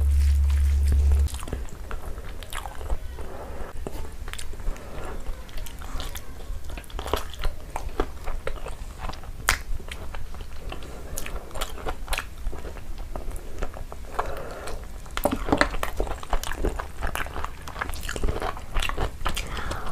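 Close-miked eating sounds: chewing and lip smacking over mouthfuls of hand-eaten rice and chicken, with many small wet clicks throughout. A loud low hum sounds for about the first second.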